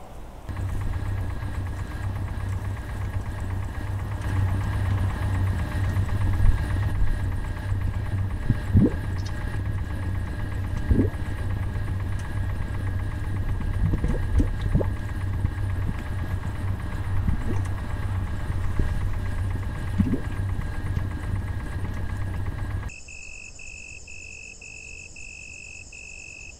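A loud, steady, low engine-like drone with a dull knock now and then, which cuts off abruptly about 23 seconds in. Crickets then chirp in an even, pulsing rhythm.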